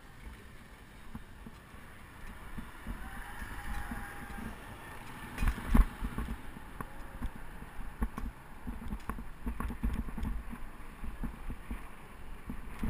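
Bicycle ride picked up by the bike's action camera: wind noise and road rattle with irregular low thumps, and one sharp jolt just before six seconds in.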